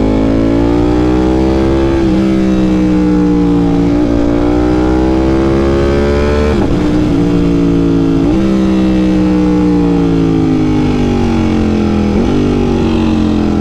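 Ducati V4 sportbike's V4 engine, fitted with a Competition Werkes exhaust, pulling under acceleration with short breaks in the rising note, then falling away steadily in the second half as the bike slows, with a brief jump near the end. Wind noise runs underneath.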